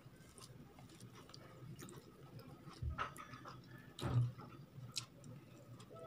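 Hand-eating sounds: fingers squishing and mixing soft upma and dal on a plate, with wet mouth clicks of chewing. Two louder thuds about three and four seconds in.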